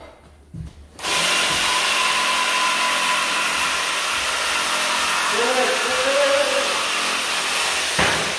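A handheld cordless power tool running steadily for about seven seconds, starting abruptly about a second in and cutting off suddenly near the end.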